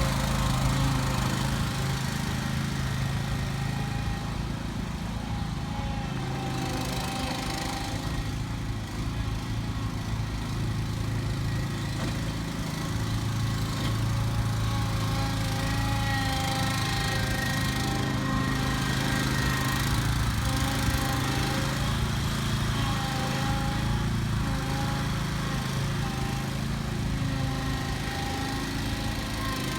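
Engine of a Snowrator stand-on snow-removal machine running steadily during a demonstration, its pitch drifting slightly.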